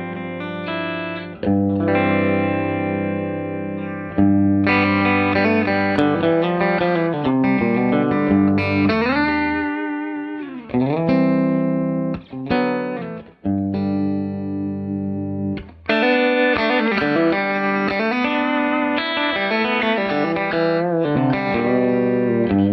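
Electric guitar played with a light overdrive, long-sustaining notes and chords with a few notes sliding down and back up in pitch.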